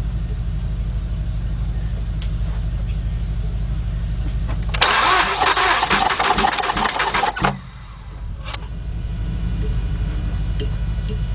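Mazda 6 V6 engine cranked over by the starter for about three seconds, from about five seconds in, then cut off, during a compression test. The cylinder on the gauge shows no compression: one of two dead cylinders on an engine that cranks but won't start. A steady low hum runs throughout.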